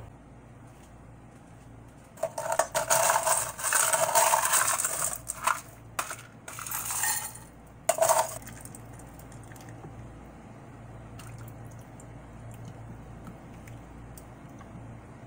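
Ice cubes scooped from a stainless steel bowl with a plastic scoop and dropped into drinking glasses, clattering and clinking in loud bursts from about two to eight seconds in. After that it goes quieter while the fruit drink is poured over the ice.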